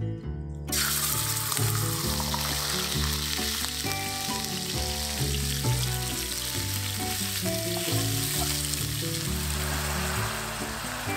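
Raw minced beef sizzling steadily in a hot frying pan, the sizzle starting abruptly about a second in as the meat hits the pan, with a wooden spatula pushing and breaking it up. Quiet background music plays underneath.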